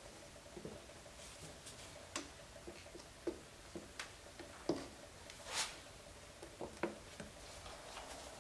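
Faint, irregular ticks and small crackles from the hot tip of a soldering-iron-style plastic welder worked into the plastic mounting tab of a headlight housing, as the plastic melts. There is one short hiss about halfway through, over a faint steady hum.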